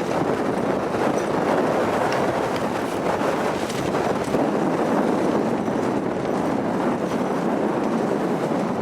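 Strong wind gusts of about 40 mph buffeting a Tarptent StratoSpire 1 tent, a loud, steady rushing noise of wind and shaking fabric.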